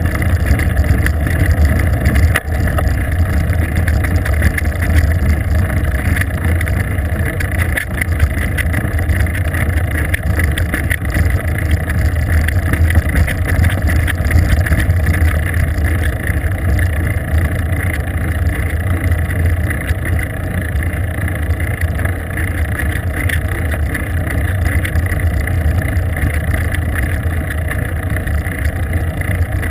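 Steady low rumble of wind and road noise on a bicycle-mounted GoPro as the bike rides along a paved road.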